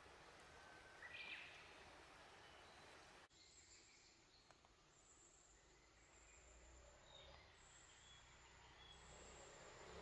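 Very faint outdoor ambience with a single short bird chirp about a second in. The background changes abruptly about three seconds in, and after that a thin, high insect buzz comes and goes with a few faint bird calls.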